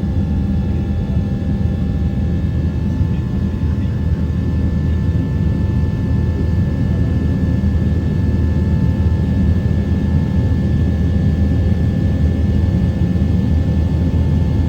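Airliner engine noise heard from inside the passenger cabin during the climb after take-off: a loud, steady deep rumble with a few faint steady whining tones above it.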